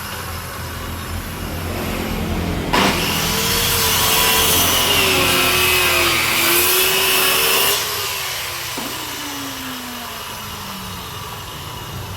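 Electric woodworking power tool cutting into wood for about five seconds, starting suddenly a few seconds in, its motor pitch wavering under load. After the cut the motor winds down with a slowly falling whine.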